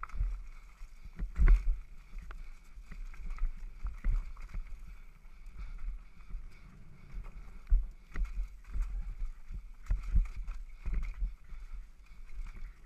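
Devinci Wilson downhill mountain bike rattling and knocking over a rough dirt trail at speed, with frequent sharp knocks over a steady low rumble; the hardest knock comes about a second and a half in.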